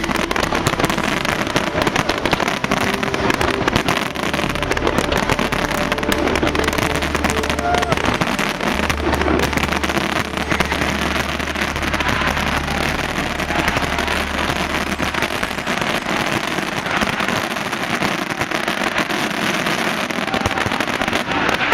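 Fireworks display, an unbroken run of crackling and popping with many small reports close together. A low steady drone sits underneath from about 4 s in until about 16 s.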